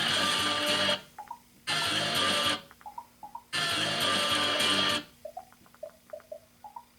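Music: three loud strummed guitar chords, each lasting about a second, with short plucked notes between them; after about five seconds only the sparse plucked notes go on, more quietly.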